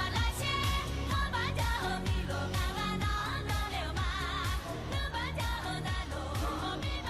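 Background music: a pop song in an Asian style, with a singing voice over a steady beat and bass.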